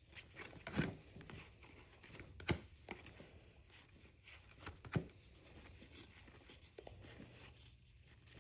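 Baseball trading cards being handled and flipped through: soft sliding and rustling with a few light taps, the clearest about one, two and a half and five seconds in.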